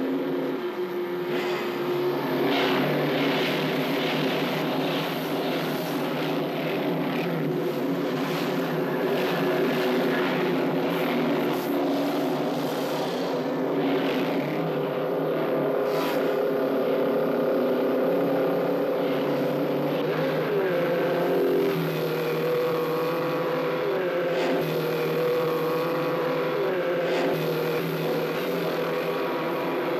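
Motorcycle engines running at speed, their pitch rising and falling as they rev.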